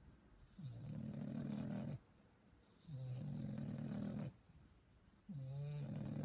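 English bulldog puppy snoring in its sleep: three long, low snores about two seconds apart, the last one with a faint whistle in it.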